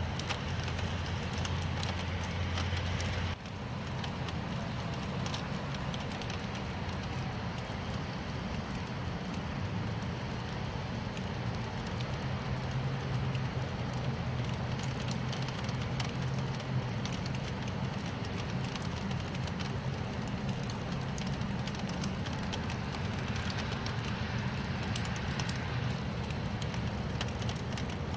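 Steady rain falling, an even hiss with a low rumble underneath. The sound changes abruptly about three seconds in.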